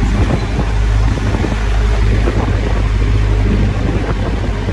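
Vehicle driving along a street: a steady low engine and road rumble, with wind buffeting the microphone.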